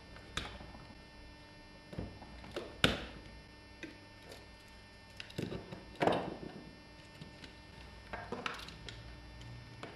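Small hand tools and metal parts handled and set down on a wooden work board: scattered clicks and knocks, the loudest about three seconds and six seconds in, with a faint steady electrical hum underneath.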